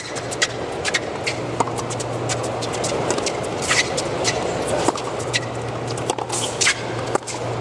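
Tennis rally on a hard court: rackets striking the ball in sharp pops a second or two apart, with quieter clicks between, over a steady arena murmur.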